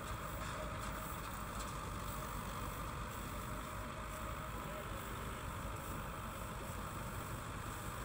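Rice combine harvester running steadily, its engine and threshing noise heard from a distance as an even drone.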